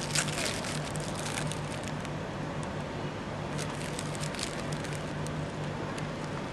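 Crisp bread of a falafel sandwich crackling as it is bitten and chewed, in a spell of crackle for about the first second and a half and another around four seconds in, over a steady low hum of city traffic.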